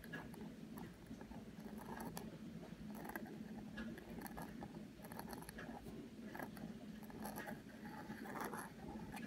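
Pointed dip-pen nib scratching across paper in short, irregular strokes as copperplate letters are written, faint over a steady low hum.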